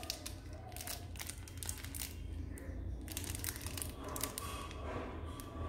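Clear plastic candy wrappers crinkling in irregular crackles as individually wrapped jelly bear sweets are picked up and handled.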